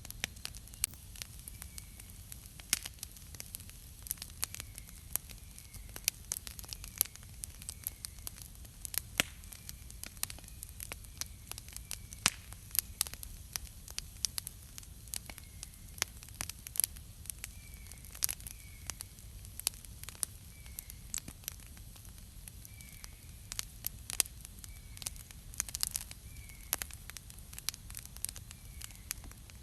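Wood campfire crackling, with frequent sharp pops and snaps over a steady low rush.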